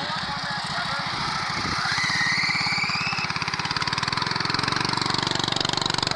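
Honda GX340 single-cylinder engine on a homemade go-kart running and revving up as the kart pulls away, its firing getting faster and louder over the last couple of seconds. A high, rising squeal comes in about two seconds in, most likely the drive belt slipping.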